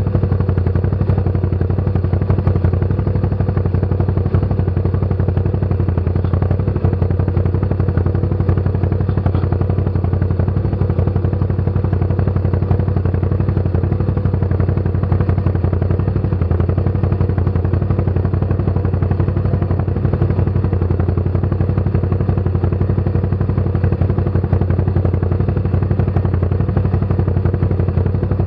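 ATV engine running at a steady speed, a loud, even drone with fast, regular firing pulses and no revving up or down.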